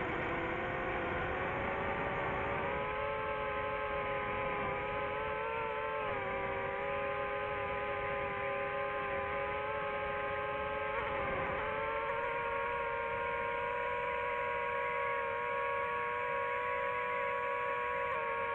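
DJI FPV drone's motors and propellers whining steadily in flight. The pitch steps up a few seconds in, dips and climbs back about eleven seconds in as the throttle changes, then holds steady.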